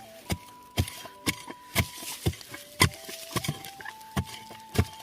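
Hoe chopping into the soil to dig out a winter bamboo shoot, with sharp strikes about twice a second, roughly ten in all.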